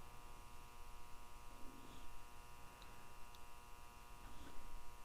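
Steady faint electrical buzz, with a couple of faint small ticks about three seconds in.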